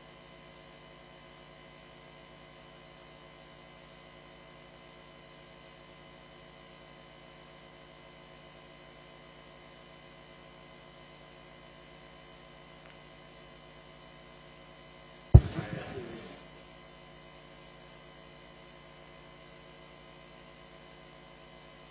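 Steady electrical mains hum with many overtones from the hall's sound system. About fifteen seconds in, one sharp loud thump with a short rattle after it.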